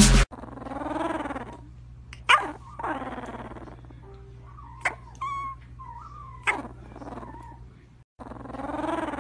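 Sleeping puppy whimpering and grumbling in its sleep: a series of drawn-out whines that rise and fall in pitch, with a few short sharp clicks between them.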